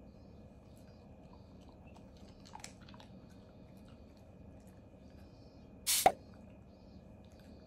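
Black Shiba Inu faintly chewing a treat, small mouth clicks around the third second, with one short loud burst of noise about six seconds in as it noses at the hand holding the rest of the treats.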